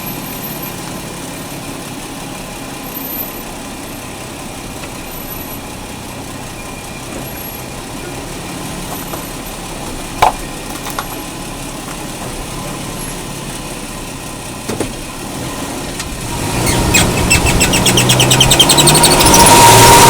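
2005 Toyota Tacoma running with a steady low drivetrain hum, which the owner suspects comes from a bad driveshaft carrier bearing. A single sharp click about ten seconds in. About sixteen seconds in the noise grows much louder, with a fast rhythmic rattle.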